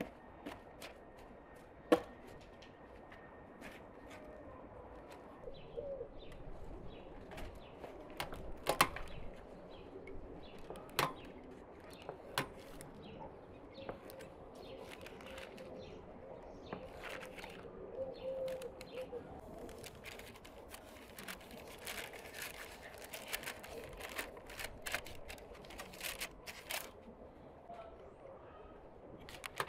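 Handling sounds of bread dough being worked on parchment paper and plastic wrap with a metal utensil: scattered sharp clicks and rustles, the loudest about two seconds in and again near nine seconds. Birds coo and chirp faintly in the background.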